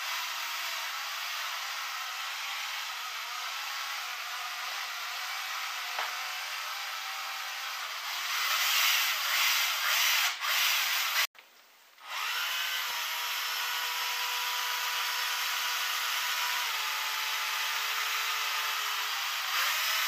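Cordless screwdriver's motor running with a long drill bit spinning in the chuck: a steady whirring whine. It grows louder and harsher for a few seconds about eight seconds in, then cuts out briefly just past halfway before running on, its pitch stepping down slightly later.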